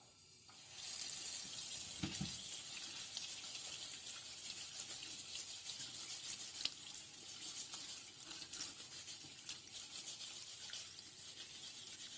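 Kitchen tap running into a sink while potatoes are scrubbed under it with a scouring pad, with small knocks and a dull thump about two seconds in.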